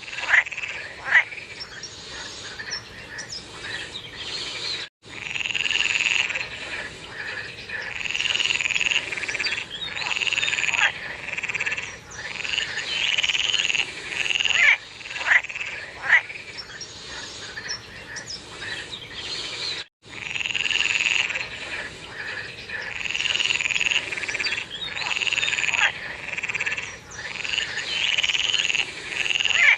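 A chorus of frogs calling: overlapping croaking calls about a second long, repeated over and over, mixed with short sharp chirps. The sound cuts out completely for an instant twice.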